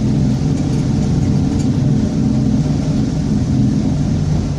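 Mercedes-Benz OF-1722M bus's diesel engine and drivetrain running steadily under way, heard from inside the bus, with the growl of a noisy differential.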